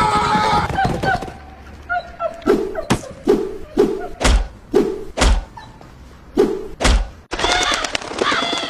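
Music fading out, then a series of about nine dull thuds over some five seconds, followed by a short high wavering sound near the end.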